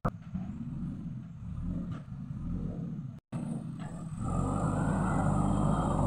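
JCB backhoe loader's diesel engine running, growing louder about four seconds in as it revs and drives forward with its front bucket.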